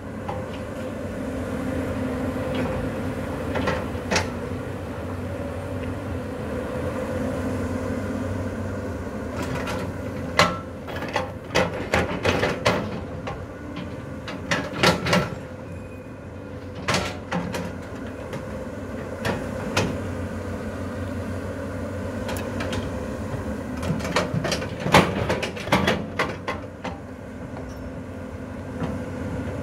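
Caterpillar 320D L long-arm excavator's six-cylinder diesel engine running steadily while it digs soil, with repeated clanks and knocks from the bucket and arm, coming in several clusters in the middle and near the end.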